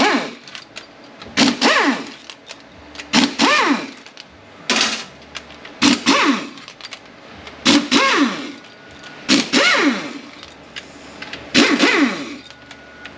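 A power driver spinning out T40 Torx bolts from a ZF 9HP48 (948TE) automatic transmission. It runs in about eight short bursts, one every second and a half or so, and each ends in a falling whine as the motor slows after the trigger is let go.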